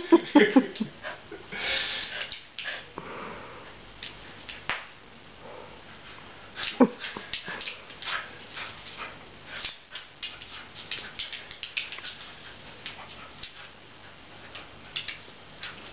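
Beagle puppy vocalizing while playing tug with a toy, loudest in the first second, with one short cry about seven seconds in. Many light clicks and knocks run under it as it scrabbles and jumps.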